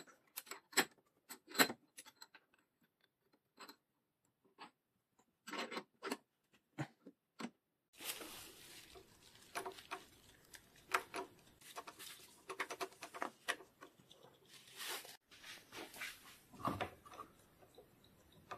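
Close-up workshop handling sounds on a bicycle's hydraulic disc brake: a series of sharp clicks and taps of small metal parts and tools, then rubbing and scraping with scattered clicks from about eight seconds in.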